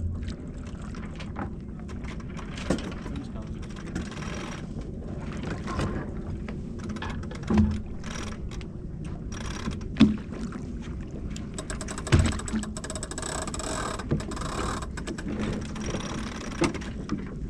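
Sailboat under way: a steady rush of wind and water, with about five sharp knocks and thumps of gear on deck.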